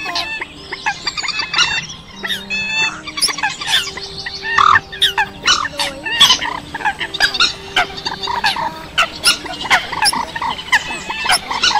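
A dense, unbroken chorus of Eurasian coot calls mixed with a second rail's calls (trích ré): many sharp, overlapping call notes with short low steady hums beneath. It is an edited lure recording, two recordings laid together, made to draw migrating waterbirds to night nets.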